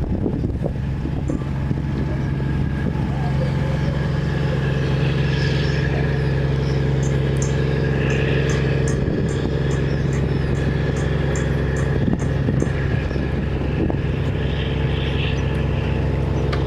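An engine running steadily at idle with a constant low hum. Through the middle, short high chirps repeat several times a second, like a small bird calling.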